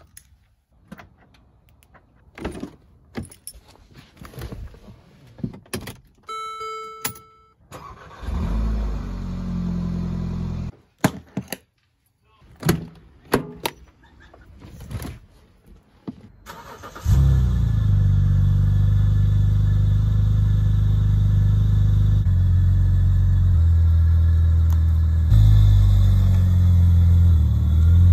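Keys jingling as they are lifted off a wall hook, followed by a short electronic chime from the car. Then a BMW E46 engine starts and idles, and about halfway through it runs at a steady idle, heard from behind the car at the exhaust.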